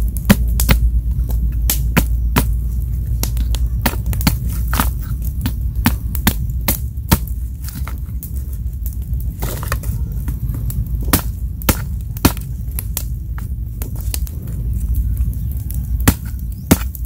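Small hatchet chopping a thin green stick against a log: many sharp, irregular knocks, with a steady low rumble underneath.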